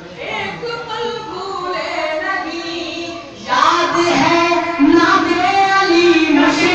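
A man singing an Urdu devotional song (manqabat) into a microphone, with long held, wavering notes. The singing gets clearly louder about three and a half seconds in.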